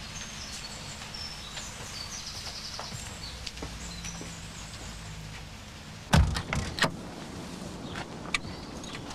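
Low steady outdoor background with faint high chirps, then about six seconds in a car door slams shut with a heavy thump, followed by a few lighter knocks and clicks of people settling into the car.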